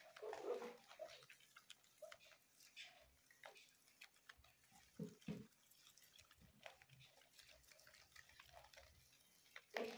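Faint crunching and rustling of a group of guinea pigs chewing lettuce leaves, small irregular clicks throughout, with two slightly louder knocks about five seconds in.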